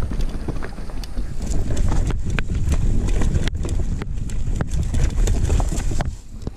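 Mountain bike descending a rough dirt trail: a steady low rumble from the tyres and wind on the camera microphone, with frequent sharp rattles and knocks from the bike over the bumps.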